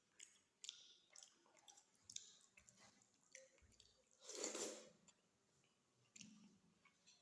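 Faint chewing and mouth clicks of a person eating, with one louder, noisy sound of about half a second near the middle.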